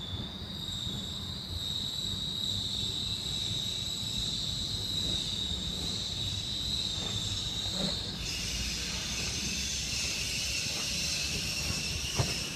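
Vintage trolley car's steel wheels squealing against the rails as it rounds a curve at low speed, over a low rolling rumble. The squeal holds one steady high pitch, then turns rougher and wider about eight seconds in.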